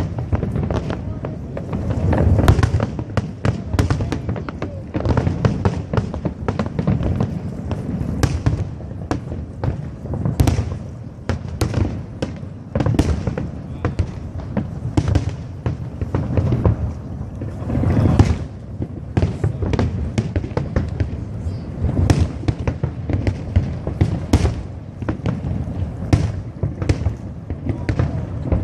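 Aerial fireworks bursting in rapid, irregular succession: sharp bangs and crackles over deep booms, with heavier clusters of booms about two seconds in and again past the middle.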